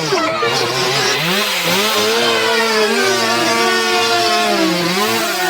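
A small engine revving up and down over and over, its pitch swinging rise and fall every second or two.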